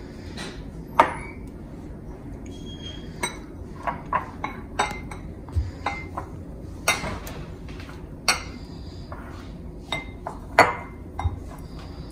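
Small ceramic bowls clinking and tapping in irregular, sharp knocks, some with a short ring, as meat is dipped in egg yolk and worked in flour.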